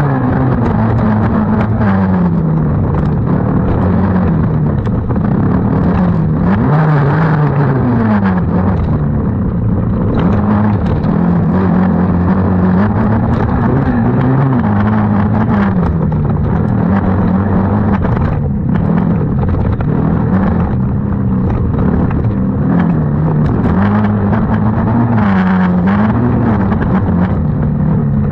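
Several small race-machine engines of a youth 90 class racing together. They rev up and back down, the overlapping notes rising and falling every second or two without a break.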